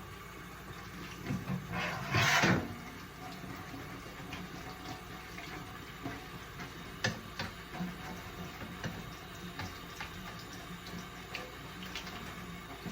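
Kitchen tap running into a sink as chrome car trim is washed by hand, with a louder rush of water about two seconds in and a few light knocks.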